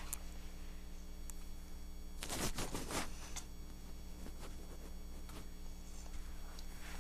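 Handling noise from a 1:18 scale model car being moved by hand: a few small clicks and a brief rustling scrape about two to three seconds in, over a steady low hum.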